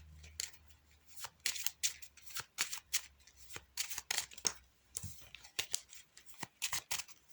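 Playing cards being handled on a table: an irregular string of short snaps and slaps, several a second, as the cards are worked through.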